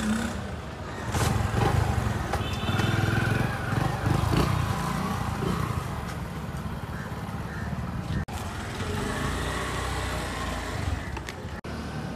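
Outdoor traffic sound with a motor vehicle passing, loudest for a few seconds about a second in, over a steady low hum.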